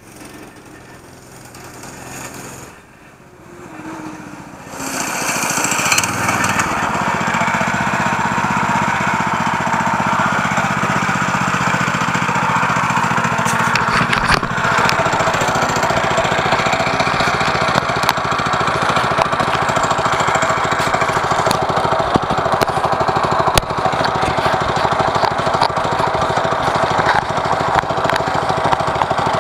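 Predator 212cc single-cylinder four-stroke engine on a minibike running, growing louder over the first five seconds as it comes close, then running steadily near by with a fast, even firing beat. A brief knock sounds about halfway through.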